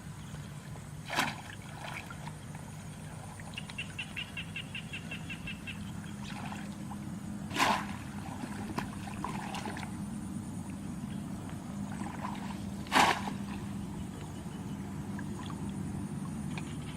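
Water splashing three times, a few seconds apart, over a steady low hum. A brief rapid ticking trill sounds between the first two splashes.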